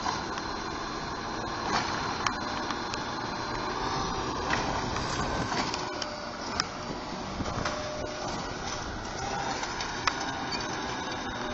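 A CNG-powered Autocar ACX garbage truck with a Bridgeport Ranger automated side-loader body, its engine running and hydraulics working steadily as it collects carts, with several sharp metallic knocks and clanks from the arm and carts.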